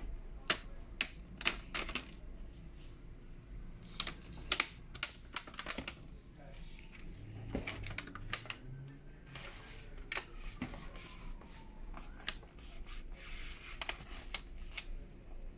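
Plastic front bezel of an HP ProBook 450 screen being pressed onto the lid, its clips snapping into place as a run of sharp, irregular clicks. The clicks come in clusters: early on, again around four to six seconds in, and once more near the end.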